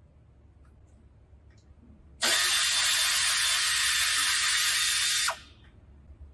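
Pneumatic air ratchet running steadily for about three seconds, starting and stopping abruptly, as it backs out one of the 10 mm bolts holding the engine lower splash shield.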